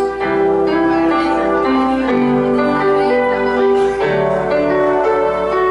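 Yamaha electronic keyboard playing slow, held chords with a simple melody moving over them.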